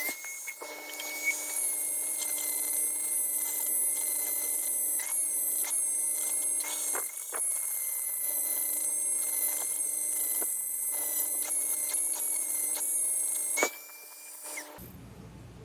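Milling machine cutting the steel face of a Jeep brake caliper: a steady high-pitched whine at a fixed pitch, with occasional sharp metallic ticks. It stops about three-quarters of a second before the last two seconds, leaving a quieter hum.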